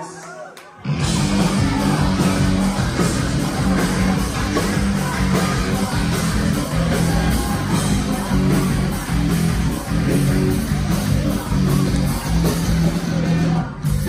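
Loud live rock band playing through a venue PA: after a lull of just under a second, the full band comes in hard with heavy guitar and drums and a singer's vocals, and keeps going.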